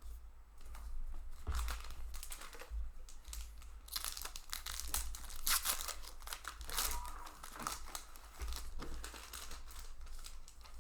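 Foil Ravnica Allegiance booster pack wrappers being torn open and crinkled in the hands. The crinkling is loudest about four to six seconds in.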